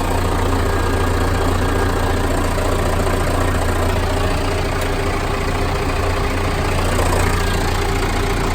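John Deere 6400 tractor's four-cylinder diesel engine idling steadily with an even low hum, freshly rebuilt and running smoothly.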